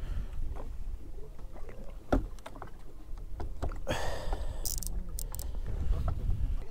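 Small boat drifting on calm sea: a steady low rumble of water against the hull, with a sharp knock about two seconds in and a brief rush of noise around four seconds.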